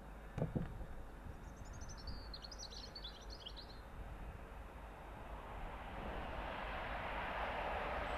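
Colas Rail diesel locomotive approaching, its engine and wheel noise growing steadily louder through the second half. Birds chirp in the middle, and there is a single knock about half a second in.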